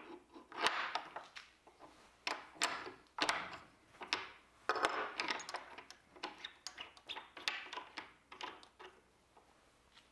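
Metal clinking and scraping as a collet nut is unscrewed by hand from a TTS-style tool holder held in a wrench: a run of short, irregular clicks and rattles that dies away near the end.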